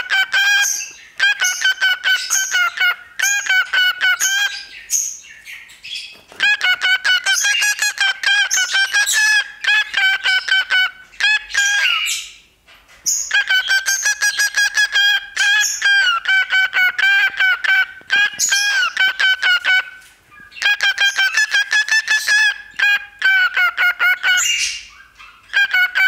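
Cockatiel calling right into a close microphone: long runs of rapid, pulsing whistled notes at a fairly steady pitch, broken by a few brief pauses.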